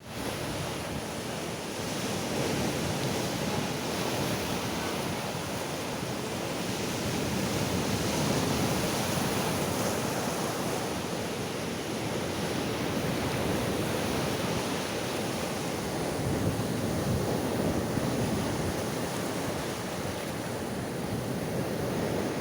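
Black Sea surf washing onto the shore in a steady rush that swells and eases every few seconds, with wind buffeting the microphone.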